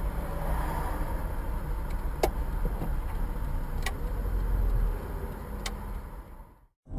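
Steady low rumble of a car idling in traffic, heard from inside the cabin, with three faint sharp clicks about a second and a half apart. The sound fades out just before the end.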